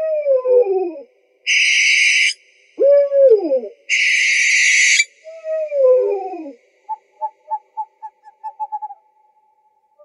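Owl calls: three falling, wavering calls, with a harsh hissing screech between each pair, then a quick run of short notes a few seconds before the end.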